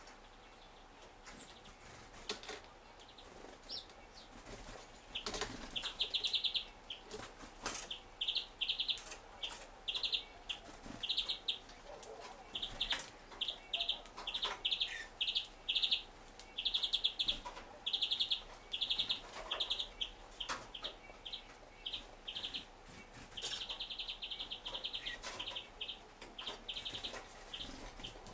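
Small songbirds calling in a string of short, high, rapid rattling trills that start about five seconds in and repeat every second or so. Sharp clicks of beaks pecking at a wooden feeder tray are mixed in.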